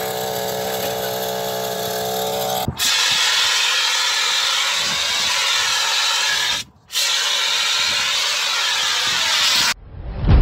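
Chainsaw two-stroke engine fitted to a bicycle running steadily, then cutting off about three seconds in to a fire extinguisher discharging with a loud, steady hiss, sprayed onto the bike as it catches fire. The spray breaks off briefly near the middle and stops about a second before the end.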